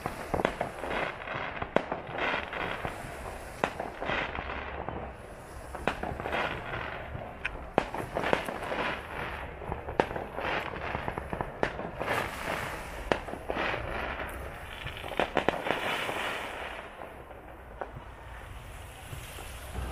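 Fireworks display: a string of sharp bangs mixed with dense patches of crackling, briefly quieter near the end.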